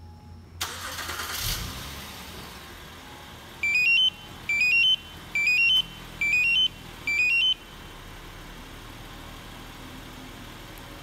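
A 2010 Acura MDX's 3.7-litre V6 cranking and catching on a remote start about half a second in, then settling to a steady idle. Midway, five short rising three-note beeps sound in quick succession, the loudest thing heard: the two-way remote confirming that the engine is running.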